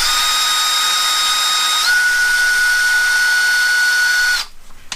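Cordless electric drill/driver with a hex bit, running at a steady whine while backing out a 2 mm hex bolt. The whine steps up in pitch about two seconds in, then stops abruptly shortly before the end.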